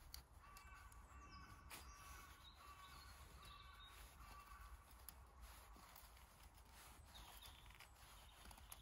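Near silence: faint outdoor ambience with a few soft clicks and a faint high tone held for about five seconds.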